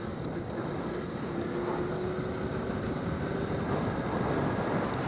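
Suzuki Smash 115 underbone motorcycle riding at steady speed: its small single-cylinder four-stroke engine running under a haze of wind and road noise, with a faint steady tone in the middle.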